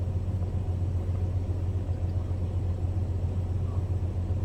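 A steady low rumble that holds even throughout, with no distinct events.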